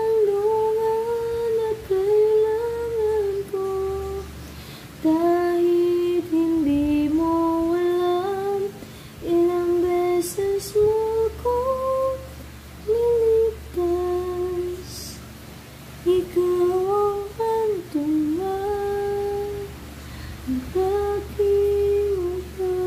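A woman humming a slow melody as a lullaby, holding long notes with short gliding steps between them.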